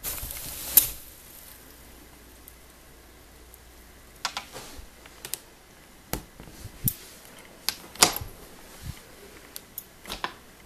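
A short burst of rustling wood-shaving bedding, ending in a sharp click, as a boa constrictor strikes at its prey and flings the shavings. Scattered light clicks and taps follow.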